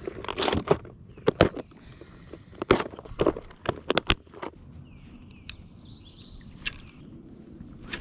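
Sharp clicks and knocks of fishing gear being handled on a kayak, a busy cluster in the first four seconds, followed by a few faint high chirps.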